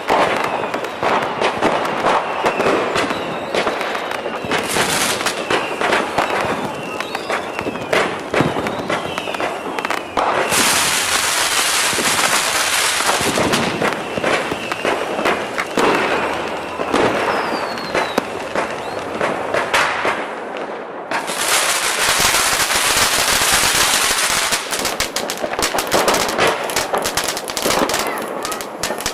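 Fireworks going off in quick succession: rapid pops and bangs, with two long stretches of dense crackling.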